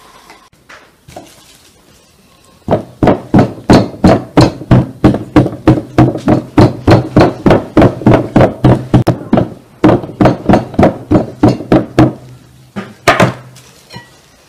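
The end of a thin wooden rolling pin jabbed again and again through a sheet of rolled dough onto a round wooden board, pricking holes in it: a fast, even run of dull wooden knocks, about four a second. The knocks run for around nine seconds, then come two more near the end.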